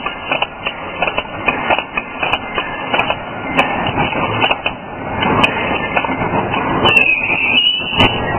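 Barbed wire making machine running, its barb-twisting head making a continuous metallic clatter of rapid knocks and clicks. A brief high-pitched squeal comes in near the end.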